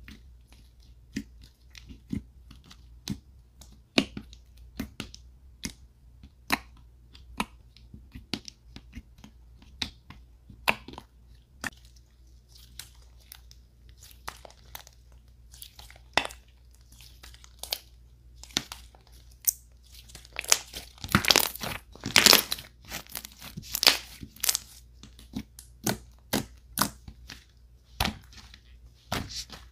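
Hands poking, stretching and pressing white fluffy slime, giving a string of sharp pops and crackles. The crackling is thickest and loudest about two-thirds of the way through.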